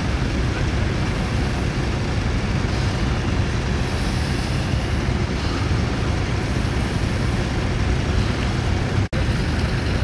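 Vintage tractor engine running steadily under load while ploughing, a constant low rumble with broad noise over it. The sound drops out for an instant about nine seconds in.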